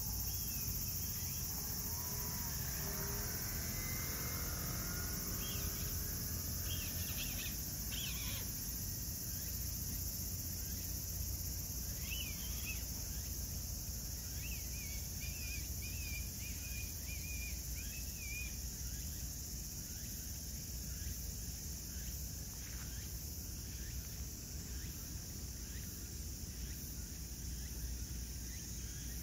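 Outdoor ambience: a steady high chirring of insects, with a few short bird calls, a warbling run of them about halfway through, over a low rumble. A faint whine slides in pitch during the first few seconds.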